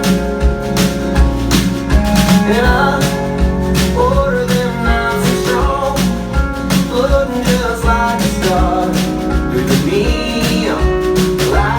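A country song played by a band, with guitar, bass and a steady drum beat; a singing voice comes in about two seconds in.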